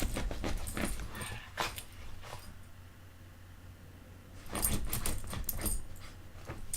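Puppy playing on a bed, scratching and rustling the bedding in two bouts of short noisy scuffles with a quieter gap between.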